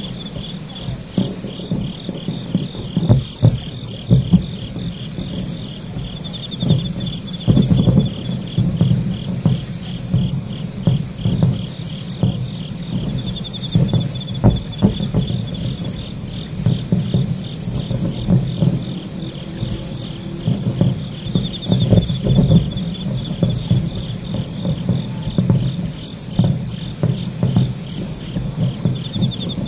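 Night insects calling steadily in several layers: a high continuous trill, a fast pulsing trill just below it, and a short very high chirp about every two seconds. Over them come irregular low booms and rolling rumbles of distant fireworks, the loudest sounds.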